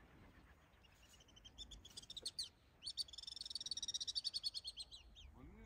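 Alpine swifts calling: rapid high-pitched trills, a short run about a second and a half in, then a longer trill from about three seconds in that tails off near five seconds.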